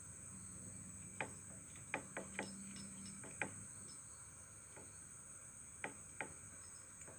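Aftermarket clutch housing on a Yamaha RX-King rocked by hand, giving about seven short, sharp metallic clicks in irregular groups as it knocks back and forth in its play: the housing sits loose with too much clearance. Crickets chirp steadily behind.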